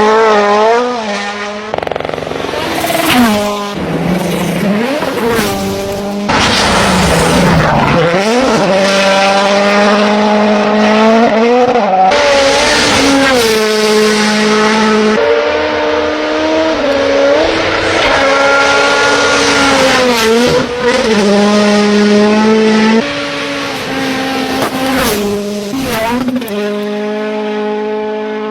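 Rally car engine revving hard, its pitch climbing and dropping repeatedly as the driver accelerates, lifts off and changes gear.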